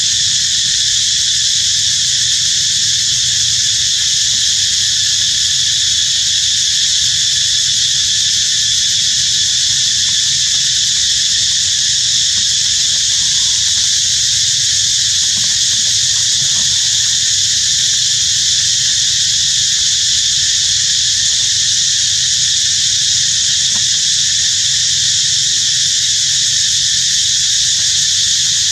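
Steady, high-pitched insect chorus, a continuous shrill buzz that doesn't change or break, under a low rumble.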